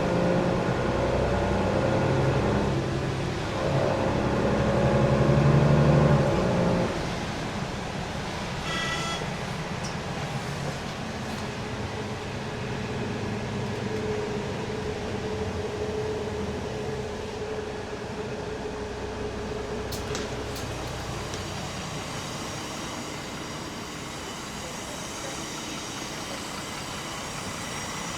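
A heavy vehicle's engine running close by, loudest about six seconds in, then fading away into steady street traffic noise.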